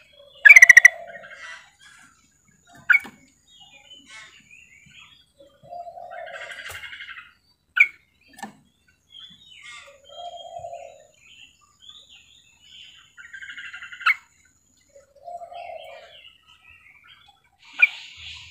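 Female yellow-vented bulbul (trucukan) calling: loud, sharp single notes every few seconds, with a quick rattle of them about half a second in and short chattering phrases between. This is the female's call that draws male trucukan to answer.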